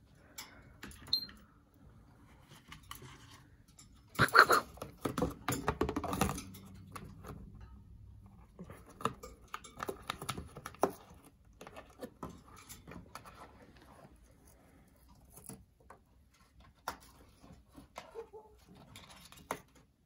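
African grey parrot biting and tearing a cardboard tissue box with its beak: irregular crackling, clicks and rustling. The loudest stretch of tearing comes about four to six and a half seconds in.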